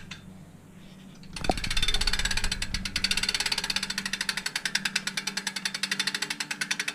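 Rear freehub of a 2012 Devinci Wilson downhill bike ticking rapidly as the wheel freewheels, starting with a knock about a second and a half in; the clicks slowly spread apart as the wheel loses speed.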